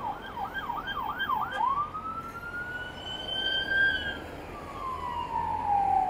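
Emergency vehicle siren in a fast yelp, about three sweeps a second. About a second and a half in it switches to a slow wail that rises and then falls away, over a steady hum of traffic.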